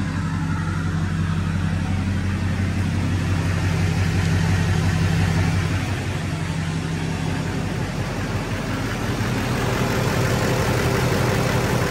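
Straight-piped LBZ Duramax 6.6-litre turbo-diesel V8 in a 2007 Chevrolet Silverado 2500HD idling steadily, just after its first start on a freshly installed and bled AirDog lift pump. It runs evenly and sounds healthy.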